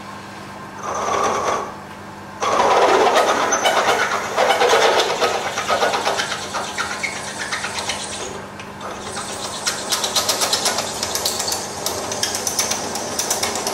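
Milling machine drilling a 14 mm hole with a twist drill at slowed spindle speed: the motor hums steadily while the drill cuts into the metal. The cutting noise comes in briefly about a second in, then runs continuously from about two and a half seconds, with rapid regular ticking in the later part.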